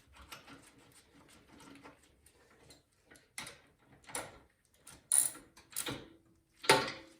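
Metal hand-tool clicks and taps as a snowblower's spark plug is threaded back in by hand and tightened: faint light ticking at first, then about five sharper separate clicks in the second half.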